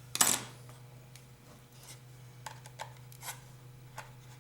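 Small Phillips screw being driven into a cuckoo clock's wooden case with a hand screwdriver. A short scraping rasp comes about a quarter second in, then a few light clicks and ticks as the screw is snugged, over a steady low hum.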